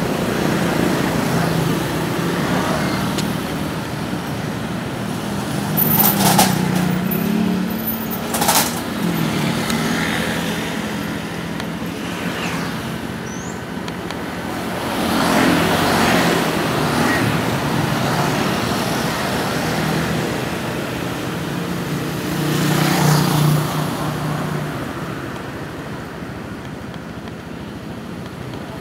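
Road traffic with heavy vehicles such as buses and trucks passing: a low engine rumble and tyre noise swelling and fading as each goes by. Two short, sharp hissing or clicking sounds come about six and eight and a half seconds in.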